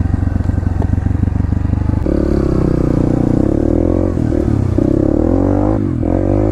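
Dirt bike engine heard close from the bike itself: it runs low and even for about two seconds, then the throttle opens and the engine note climbs and wavers as the bike rides the trail. The note dips briefly near the end.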